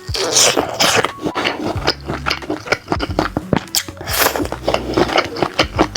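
Close-miked eating sounds: biting and chewing crispy grilled sausage, a dense run of short crunchy clicks and smacks.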